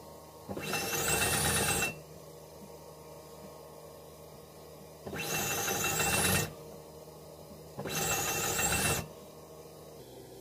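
Industrial sewing machine stitching in three runs of a little over a second each, each opening with a quick rising whine as the machine comes up to speed. A steady low hum carries on in the pauses between runs.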